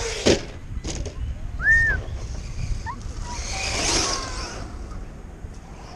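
A radio-controlled truck lands from a jump with a sharp knock just after the start, then a short high squeak follows. Around four seconds an RC truck's motor and tyres on the dirt swell into a hiss and fade.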